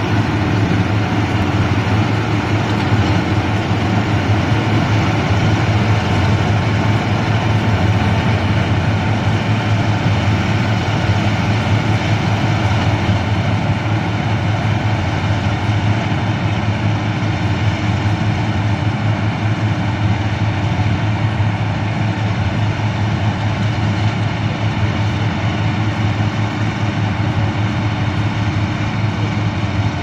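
Combine harvester with an attached straw baler running under load while harvesting rice: a steady engine hum over the dense mechanical noise of the threshing and baling gear. It grows a little fainter in the second half as the machine pulls away.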